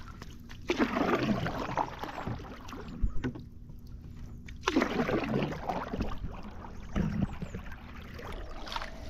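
Canoe paddle strokes pulling through calm lake water: a swirling splash every few seconds, with quieter drips and water movement between strokes.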